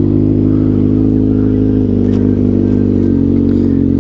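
Kawasaki ZX-6R's 636 cc inline-four engine running at a steady, unchanging pitch through an aftermarket M4 carbon slip-on exhaust.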